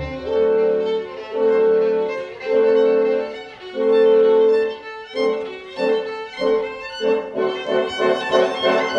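Solo violin playing with a string orchestra: four long held notes, then a quicker run of shorter notes from about five seconds in.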